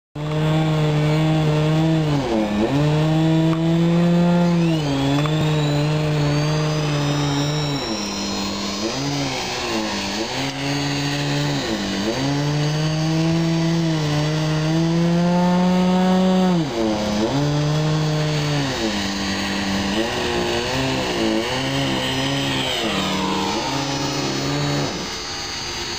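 Radio-controlled model helicopter running and flying, a steady buzzing drone whose pitch dips briefly and comes back again and again. Faint high whines glide up and down early on, and the sound drops in level near the end.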